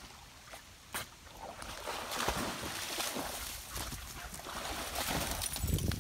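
Pond water sloshing and splashing as a dog swims near the bank, with a couple of sharp clicks in the first second. Heavy thuds of footsteps start near the end.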